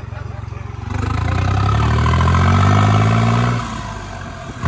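New Holland tractor's diesel engine accelerating under way: its note climbs steadily from about a second in, then the throttle comes off and it falls back near the end.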